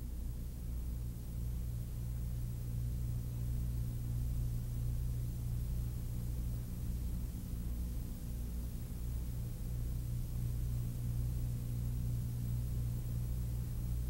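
Steady low hum made of several stacked low tones, with no other sound standing out.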